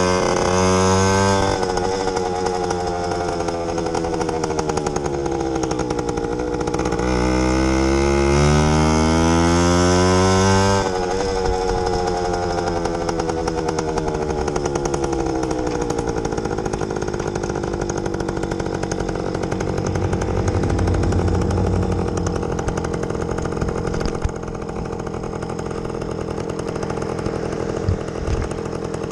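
Yamaha YG5T Trailmaster's small two-stroke single under way. The engine note climbs in pitch and drops back sharply a few times as the bike shifts up, then winds down and runs at a steadier, lower note as the bike slows.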